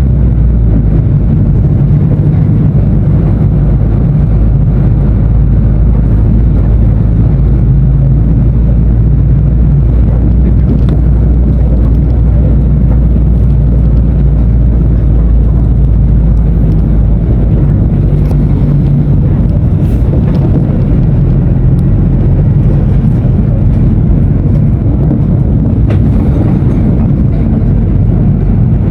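Diesel engine of a Mercedes-Benz OF-1519 BlueTec 5 bus running steadily with a loud, even low hum. Its note changes about halfway through.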